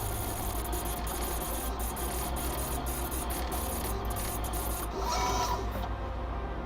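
Desktop 3D printer's stepper motors running through a print: a steady low hum with an uneven stepping stutter. About five seconds in, a brief higher whine sounds as a move speeds up.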